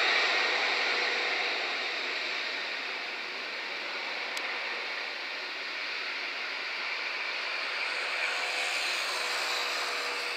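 Boeing 747-400's four General Electric CF6 turbofans at takeoff thrust, a steady jet rumble and hiss that fades over the first few seconds as the airliner rolls away down the runway, then holds.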